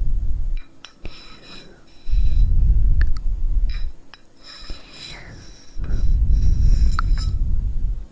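Slow breathing close to the microphone: long breaths blow onto the mic as a low rumble of about two seconds each, one ending just after the start, one from about two seconds in and one from about six seconds in. Softer, hissing breaths and a few faint clicks come in between.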